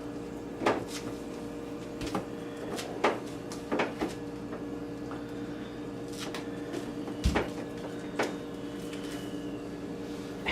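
Scattered clicks and knocks of a toddler handling things in an open fridge, about eight in all, the loudest a knock with a low thump about seven seconds in, over a steady hum.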